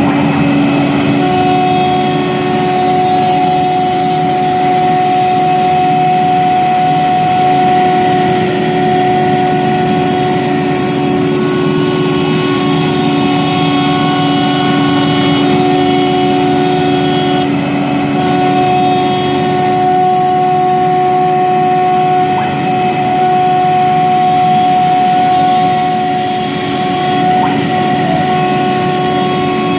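CNC gantry wood router running, its spindle cutting wood with a steady whine made of several tones over a rushing noise; some of the tones drop out and come back every few seconds.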